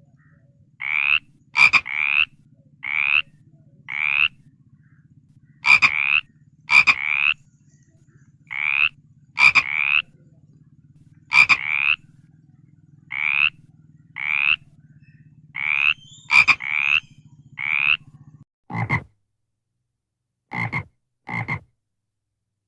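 Frog calling, a short rising croak repeated about once a second, sometimes in quick pairs, over a steady low hum. Near the end the hum stops and three deeper croaks follow.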